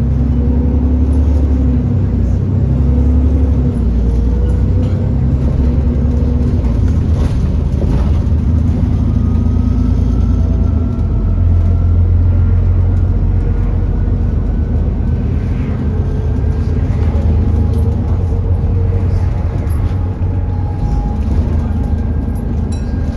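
Alexander Dennis Enviro400 E40D double-decker bus under way, its engine a steady low rumble. About halfway through, a thin whine rises slowly in pitch over it: the bus's loud 'hoover' whine.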